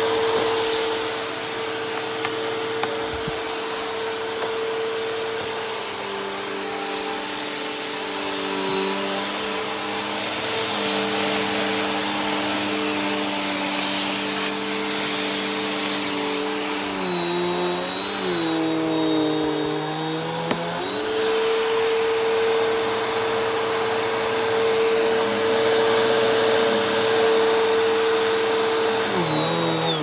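Bissell PowerForce Helix upright vacuum cleaner running with a steady motor whine. Its pitch drops and wavers for a while in the middle, while the hose attachment is being used, then comes back up. The motor starts to wind down at the very end.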